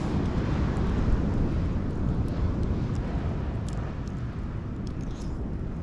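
Steady low rumble of wind on the microphone by the sea, with a few faint crackles from a wood campfire.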